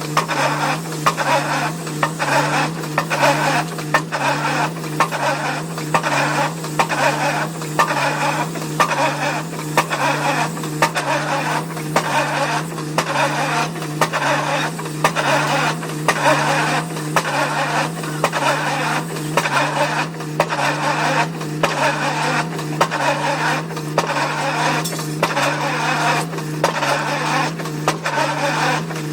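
Excavator-mounted pile-driving hammer striking a foundation pile in a steady rhythm of sharp blows over the drone of the machine's engine.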